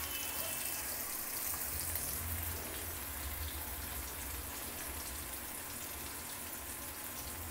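Sliced onions and tomatoes sizzling steadily in hot oil in a wok.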